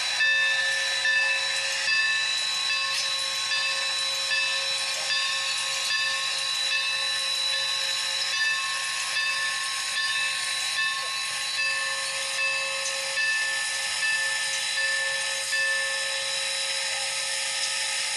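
Norfolk & Western #475, a 4-8-0 steam locomotive, standing and hissing steam, with steady whistling tones over the hiss and a soft pulse every second or so. It is heard through a television speaker, thin and without any low end.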